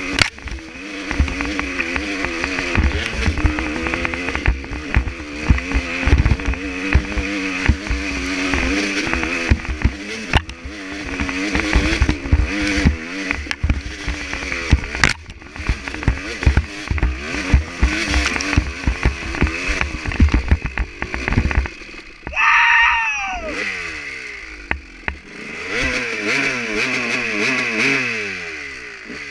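Dirt bike engine revving up and down under load on a steep climb, with the bike jolting over bumps. About three quarters of the way through, the engine note drops and a loud, high yell rises and falls away, then the engine revs up again.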